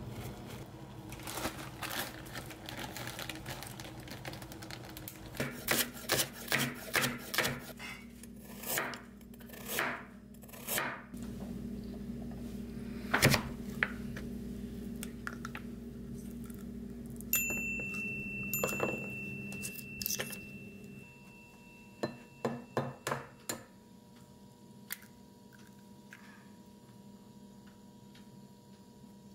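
Kitchen food-prep knocks and taps on a wooden cutting board, including a plastic plunger flower cutter pressed through carrot slices, over a steady low hum. A high steady tone sounds for a few seconds midway.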